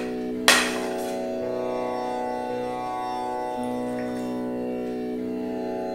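Background instrumental music in an Indian classical style: plucked strings over a steady drone, with one sharp strike about half a second in.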